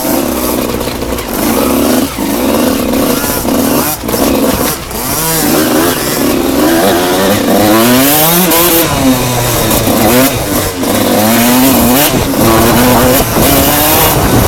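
Enduro motorcycle engine revving hard, its pitch climbing and dropping again and again as the bike accelerates, shifts and slows along the trail, with a few sharp knocks.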